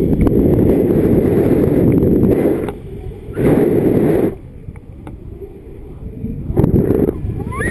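Wind rushing over a paraglider pilot's camera microphone in flight, coming in gusts: loud for the first two and a half seconds, then dropping away, with two shorter surges about three and a half and six and a half seconds in.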